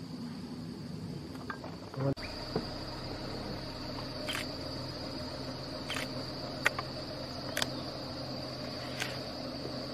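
Steady, high-pitched drone of an insect chorus in forest. After a cut about two seconds in, a low hum joins, and scattered sharp clicks come every second or two.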